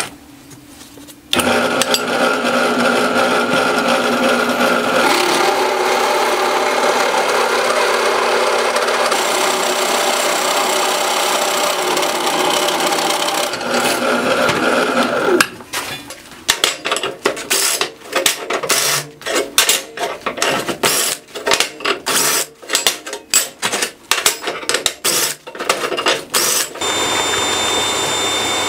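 Drill press cutting steel plate with a step bit and a hole cutter: a steady motor-and-cutting whine for about the first half. After that comes a run of irregular sharp clacks and knocks.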